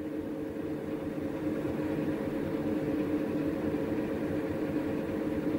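Steady low mechanical hum of spacecraft cabin machinery: a constant drone of a few level tones over a low rumble.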